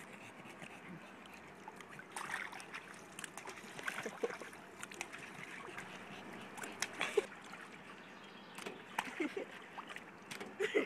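Pool water splashing and trickling, with scattered small clicks and knocks.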